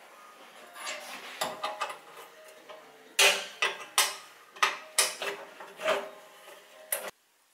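Metal clanking and clattering as a rusty steel moped seat base and a spanner are handled on a steel workbench. A few light rattles come first, then about eight sharp, ringing knocks in the second half, cutting off suddenly near the end.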